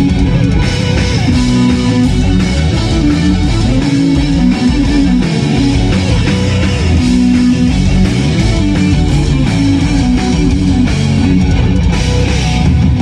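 Live heavy metal band playing loud, with electric guitars, bass guitar and drums.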